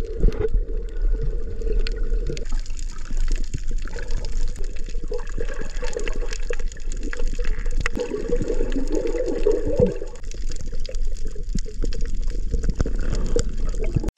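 Moving water, with a steady low rumble under many fine crackles and clicks.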